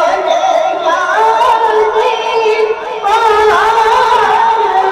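A boy's high voice singing a naat into a microphone over a loudspeaker, with no instruments, in long wavering ornamented held notes. There is a short break for breath about three seconds in.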